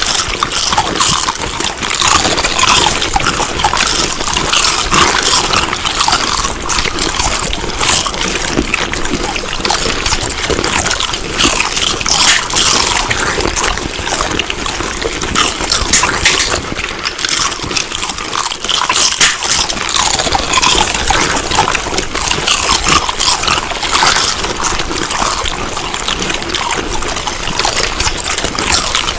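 Close-miked wet chewing and mouth sounds of someone eating: a continuous run of rapid smacks and crackles.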